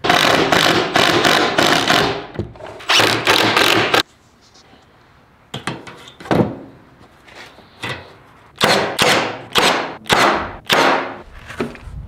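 A cordless power driver runs in two long bursts, driving screws through pilot holes into a wooden brooder wall. After that come separate wooden thunks and knocks as a painted board panel is set down and moved about on a workbench.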